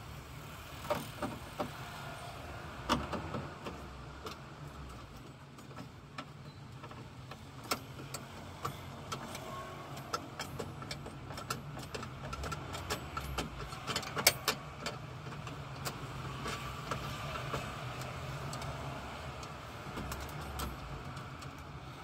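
Scattered clicks and light knocks as a universal door-lock actuator and its metal lock rods are handled and fitted inside a bare car door, over a steady low hum.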